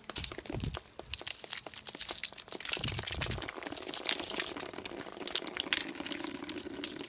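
Ice-glazed bush leaves crackling and crunching as a hand squeezes and brushes through them: a dense run of irregular sharp crackles.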